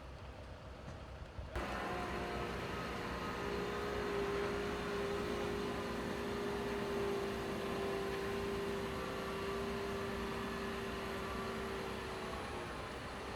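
Heavy machine engine running steadily with a constant droning hum. It sets in abruptly about a second and a half in.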